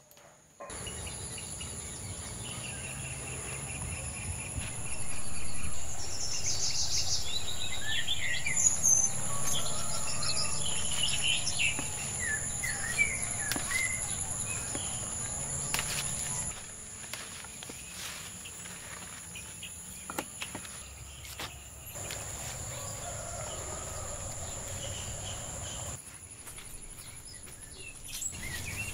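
Insects drone steadily at a high pitch, with birds chirping, mostly in the first half, and leaves rustling as they are picked by hand.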